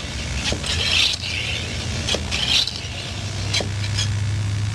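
Air being pumped into a bicycle inner tube: two hissing bursts about a second and a half apart, with a few clicks, over a steady low hum.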